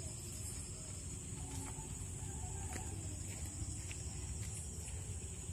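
Outdoor ambience: a steady high-pitched drone of insects over a low rumble, with scattered faint clicks.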